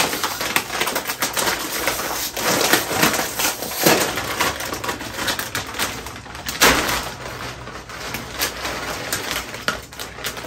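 Close-miked chewing of crisp, crunchy food: a dense, irregular run of crunches and crackles that thins out and grows quieter toward the end.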